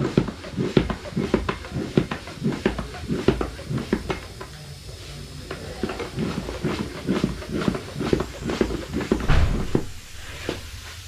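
Hands working a bicycle tyre on its rim: a run of short rubbing, scuffing and knocking sounds, several a second, with a louder knock near the end.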